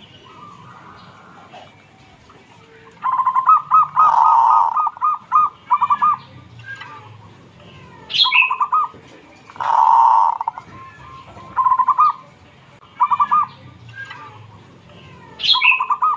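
Caged zebra dove (perkutut) cooing: repeated phrases of quick staccato notes, several ending in a longer rolling coo, starting about three seconds in. A brief higher-pitched chirp cuts in twice.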